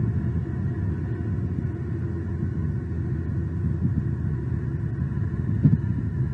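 Steady low rumble, with one brief click near the end.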